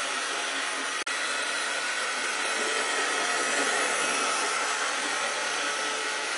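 Rivarossi HO-scale model steam locomotive running on track: its small electric motor and gearing whir steadily, with the wheels rolling on the rails. The sound drops out briefly about a second in.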